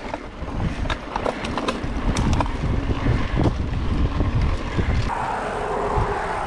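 Mountain bike rolling fast down a dirt flow trail: tyre rumble with frequent rattles and knocks from the bike, and wind on the microphone. About five seconds in it settles into a steadier hiss.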